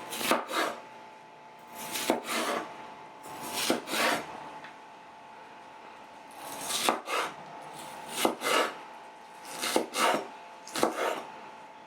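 Machete chopping an onion on a cutting board, in short bursts of a few quick strokes with pauses between.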